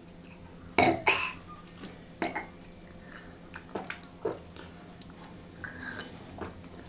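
Close-miked eating and drinking sounds: a scattering of short, sharp clicks, smacks and clinks from mouth and glassware, the two loudest close together about a second in, then a sip from a glass mug of cola near the end.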